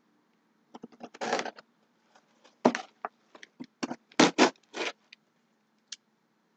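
Small blade slitting packing tape on a cardboard box: a series of short scraping rips, the loudest a little after four seconds in.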